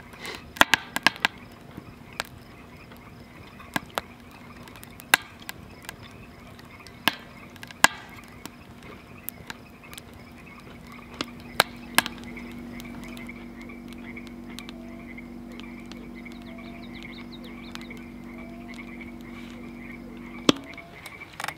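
Frogs calling steadily from a pond at dusk, with scattered sharp clicks of a spoon against a metal bowl. About halfway through a low steady drone comes in and cuts off suddenly near the end.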